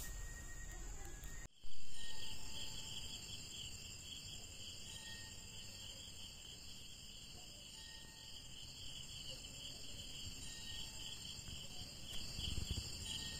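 Night insects, crickets, chirring steadily as a chorus in several high-pitched layers. Just under two seconds in, a short louder noise starts suddenly and fades away over a couple of seconds.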